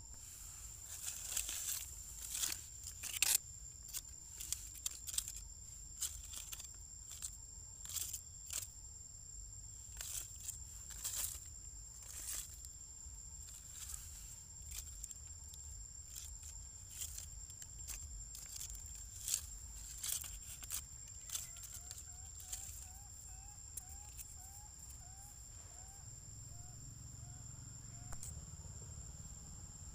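Steady high insect trill, with irregular sharp crackles and clicks over it. In the second half a bird gives a quick run of short rising notes, and a low engine hum comes up near the end.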